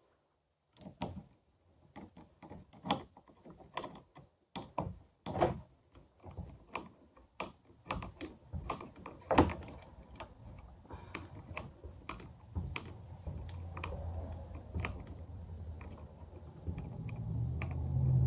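Small plastic and metal parts of a kayak rudder control knob kit clicking and knocking as they are handled and fitted together, in many short irregular taps. About two-thirds of the way through a low steady hum comes in and grows louder.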